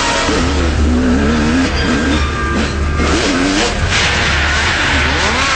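Snowmobile engine revving, its pitch rising and falling again and again, with a brighter hiss coming in about four seconds in.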